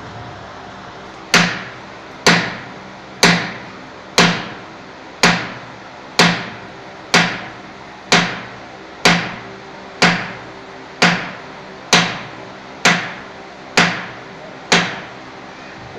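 Hammer blows on a metal driver seated on a cylinder liner, knocking the liner down into the bore of a Nissan UD diesel engine block. About fifteen sharp metallic strikes, evenly about one a second, each ringing briefly.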